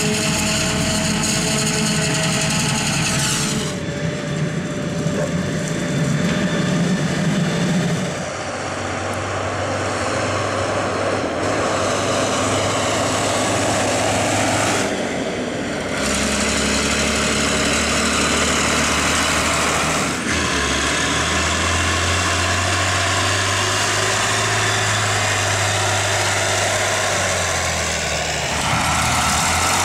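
Diesel engines of farm tractors and a Claas Jaguar forage harvester running, in a string of field recordings that change abruptly every few seconds. In the later shots a tractor engine runs under load hauling a full trailer, putting out black smoke.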